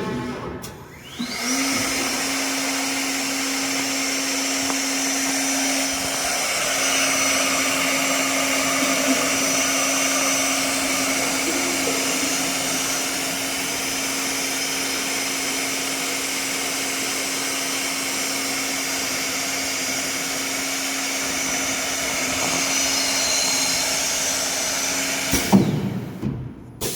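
CNC door lock machine's spindle motor spinning up about a second in, then running steadily with a hum and a high whine while the machine runs a test program without cutting any material; it stops suddenly near the end.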